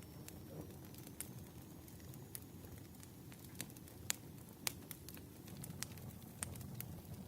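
Campfire crackling: irregular sharp pops and snaps of burning wood over a low, steady rumble of the flames.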